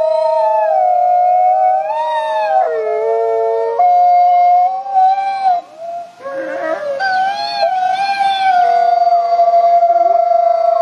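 Wolves howling in chorus: several long howls held at once at different pitches, gliding slowly up and down, with a short lull about six seconds in.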